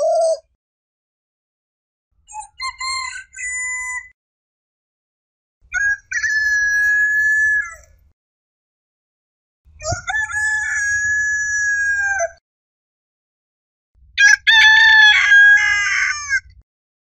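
Rooster crowing four times, each cock-a-doodle-doo lasting about two to three seconds, with a second or two of silence between crows.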